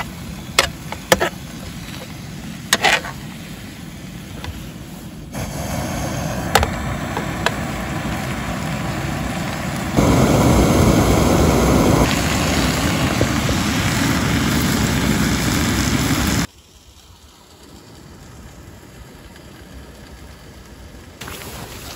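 Bacon sizzling in a non-stick pan on a camping gas burner, with a few sharp clicks of a utensil against the pan. About ten seconds in, the Jetboil Flash burner's gas flame is heard close up, loud and steady, until it cuts off suddenly and a much quieter outdoor background follows.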